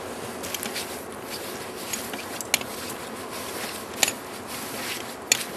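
Climbers scrambling up a rock slab on hands and feet: a steady rustle of clothing and scuffing on rock, broken by a few sharp clicks.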